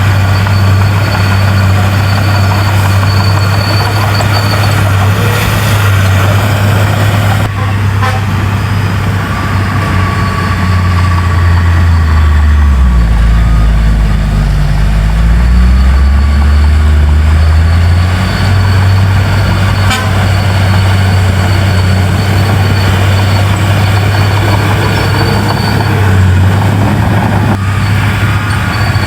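Heavy diesel engine of earthmoving machinery running loudly and steadily; about twelve seconds in its pitch drops for a few seconds, as under load, then climbs back to its earlier speed.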